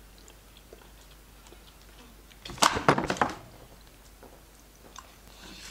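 Small scattered clicks of eating at a table, with a brief burst of louder clattering lasting under a second about halfway through.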